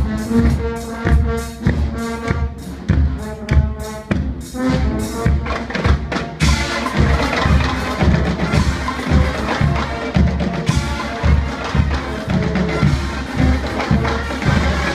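Guggenmusik band playing: brass horns over a steady pounding drumbeat. About six seconds in, the sound turns into a denser, noisier wash with the drums still beating.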